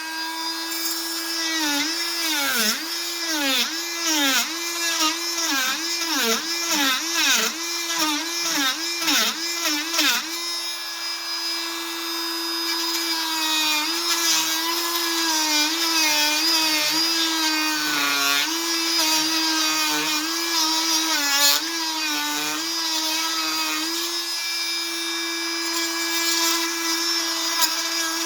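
Fein MultiMaster 500 cordless oscillating multi-tool running under load with a Bosch blade, making a steady high whine. For the first ten seconds or so its pitch dips and recovers about twice a second as the blade bogs down in the cut. After that it runs steadier, with only small dips.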